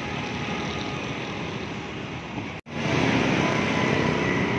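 Steady street traffic noise. It cuts out for an instant a little past halfway, then comes back slightly louder.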